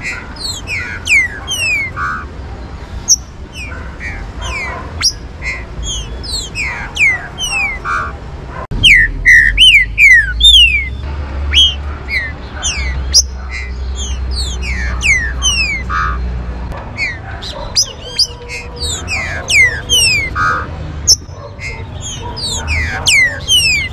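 Green-winged saltator (trinca-ferro) song: quick series of short, high whistled notes sliding down in pitch, repeated over and over. A low rumble joins for several seconds in the middle.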